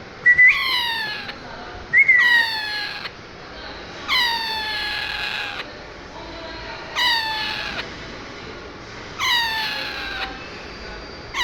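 Pet parrot giving five drawn-out calls two to three seconds apart, each one falling in pitch, with another call starting at the very end.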